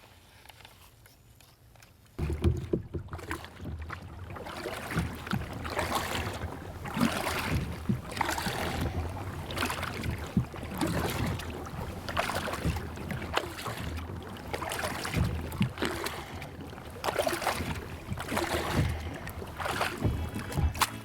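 Kayak paddle strokes through the water, a splash and swish about every second to second and a half, over a low steady rumble. The strokes start abruptly about two seconds in.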